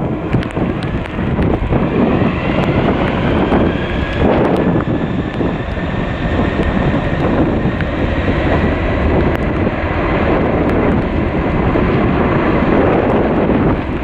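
Boeing 747 freighter's four jet engines spooling up for its takeoff roll on a flooded runway, a whine rising in pitch over the first few seconds beneath a steady heavy rumble. Strong wind buffets the microphone.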